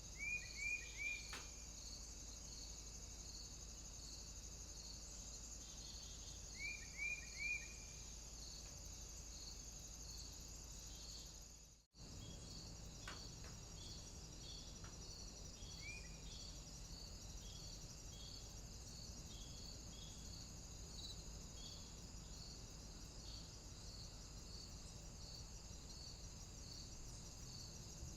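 Recorded nature ambience of crickets chirping steadily in a fast, even pulse. Louder short chirps come in quick runs of three or four near the start and about seven seconds in, with one more around sixteen seconds. The track cuts out for a moment about twelve seconds in.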